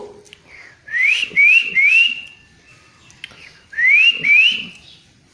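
A pet parrot whistling: three short rising whistles in quick succession, then two more after a pause.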